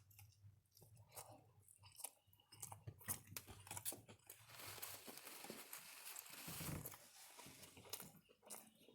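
Faint, close-up chewing of a roast beef sandwich, with many small scattered clicks and crunches and a softer stretch of mouth noise in the middle.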